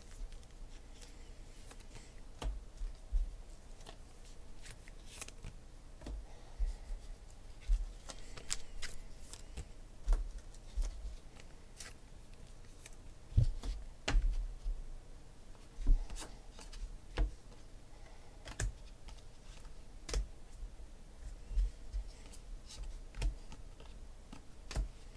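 Football trading cards being handled and flipped through one by one: an uneven string of light clicks, slides and soft taps as the cards are moved against each other and set down.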